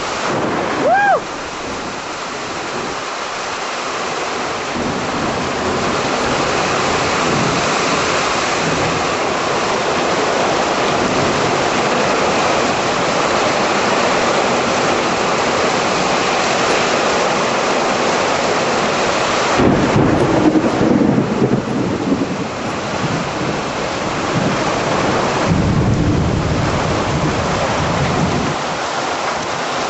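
Heavy rain pouring down steadily in a severe thunderstorm, with thunder rumbling twice: once about two-thirds of the way through and again shortly before the end.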